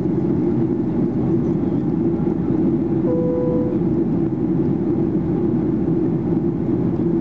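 Steady cabin noise of a Boeing 737-800 in flight: its CFM56-7B engines and the airflow make an even, low rushing sound. About three seconds in, a single cabin chime tone sounds for under a second.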